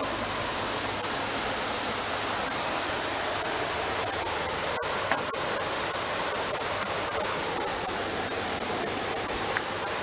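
Steady, high-pitched chorus of insects buzzing, with a sharp click about five seconds in.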